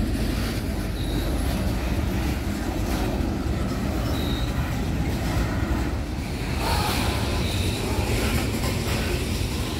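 Coal hopper cars of a freight train rolling steadily past, a continuous low rumble of wheels on rail. A few short, faint high squeals are heard now and then.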